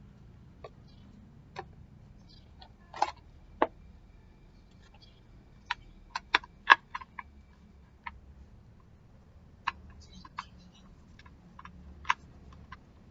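Irregular sharp clicks and taps of small hard electric fan parts being handled and fitted, with a quick run of louder clicks about six to seven seconds in.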